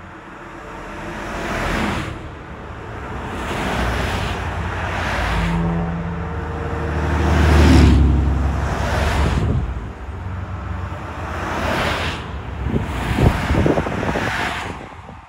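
Traffic passing on a two-lane road, one vehicle after another, each swelling and fading away. About halfway through, one passes with a low engine drone and is the loudest of them.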